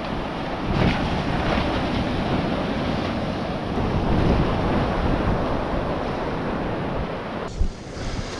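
Ocean surf breaking and washing up the beach, swelling and easing, with wind buffeting the microphone. A brief knock comes near the end, followed by a moment of muffled sound.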